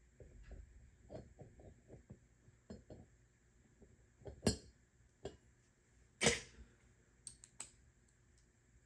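Bicycle crankset parts being handled and fitted together, the chainring going onto the crank arm: a scatter of light metallic clicks and taps, with two louder clinks about four and a half and six seconds in.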